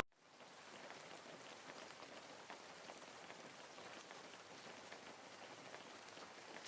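Faint steady hiss with a fine crackle.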